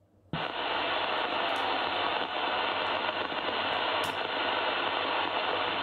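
Steady static hiss from the CRT SS9900 CB radio's receiver, coming on suddenly about a third of a second in, as the set drops back to receive after a call.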